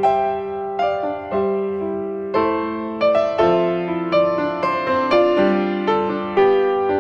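Background music on piano: a gentle melody of notes struck one after another, about two a second, each ringing and fading.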